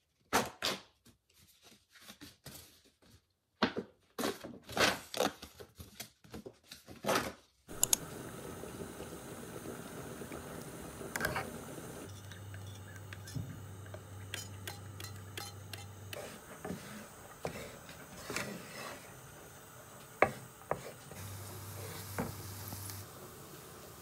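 Tissue paper and packaging crinkling in quick bursts, then a pot of pasta at a rolling boil giving a steady bubbling hiss, with a metal fork clinking and scraping against the metal pot several times.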